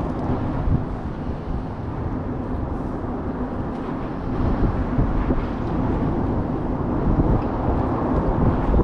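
Wind buffeting the microphone: a steady low rumbling noise that rises and falls unevenly, a little louder near the end.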